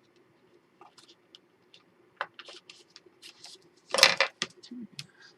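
Paper and chipboard being handled on a worktable: scattered light taps and rustles, with a sharp click a little after two seconds and one louder, brief clatter about four seconds in.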